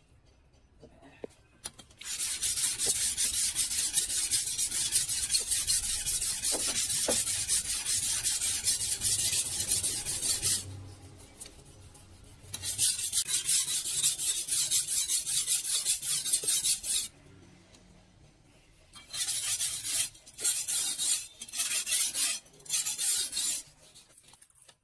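Steel cleaver blade being hand-sharpened: rapid rasping strokes of a hand tool on the steel. A long run starts about two seconds in, a second run follows a short pause, and four short bursts come near the end.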